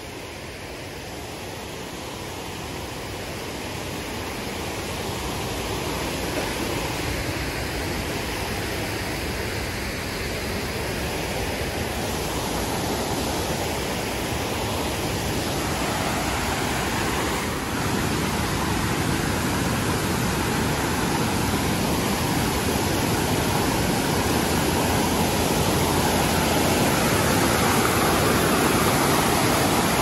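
A waterfall's rapids: fast, foaming river water rushing over rock in a steady hiss, growing steadily louder as the water gets nearer.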